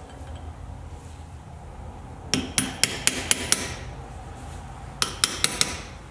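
Hammer tapping a flat steel chisel set against the front wheel-bearing nut on the hub's stub axle, to work the nut loose for taking the tapered roller bearing apart. Sharp metallic strikes in two quick runs, about six and then four.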